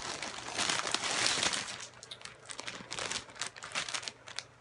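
Plastic packaging bag crinkling and rustling as it is pulled open by hand: a dense rustle for the first couple of seconds, then scattered crackles.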